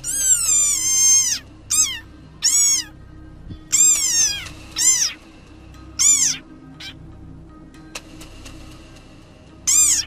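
Desert rain frog squeaking: about seven short, high-pitched squeals, the first over a second long, each falling in pitch at its end. It is the frog's defensive threat call.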